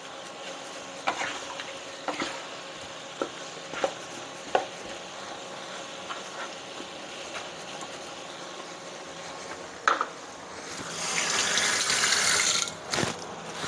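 Wooden spatula stirring a thick curry of pork ribs and potatoes in a frying pan, with scattered knocks and scrapes against the pan over a steady simmer. Near the end comes a louder rushing noise for about two seconds.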